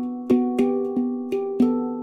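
Celestial Sound E Shahmaran 9 handpan (E Kurd scale, nitrided DC04 steel) played with the hands. Five notes are struck at about three a second, each ringing into the next. The last note, about a second and a half in, is left to ring and dies away.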